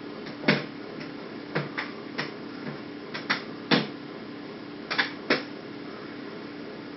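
A series of irregular sharp clicks and knocks, about a dozen, the loudest about half a second in, in the middle, and a close pair near the end, over a faint steady hum.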